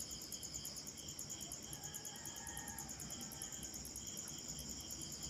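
Faint, steady high-pitched chirring of crickets, pulsing rapidly, over quiet room tone.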